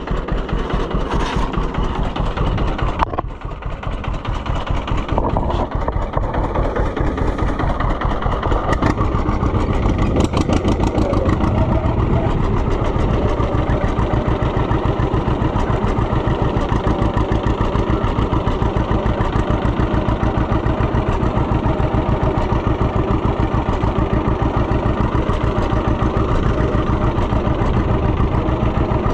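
A vehicle's engine running, with a single clunk about three seconds in. It then picks up and runs at a steady, even pace from about nine seconds on, as when driving off.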